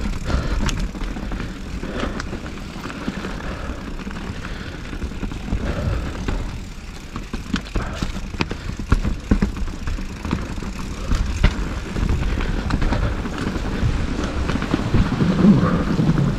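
Mountain bike ridden down a rough dirt singletrack: a steady low rumble of wind and tyre noise, broken by many sharp rattles and knocks from the bike.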